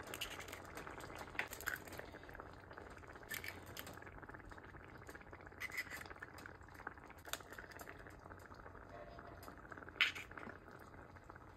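Thin egg curry simmering in a pot with a faint, steady bubbling, over which come short sharp clicks and crackles as eggs are cracked and their shells pulled apart above the pot; the sharpest click comes near the end.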